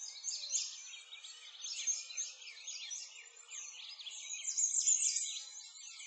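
A chorus of many songbirds chirping at once, quick high calls overlapping without a break.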